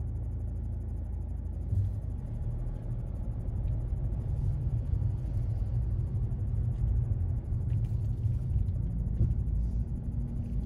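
Low, uneven rumble of a car driving in slow traffic, heard from inside the cabin.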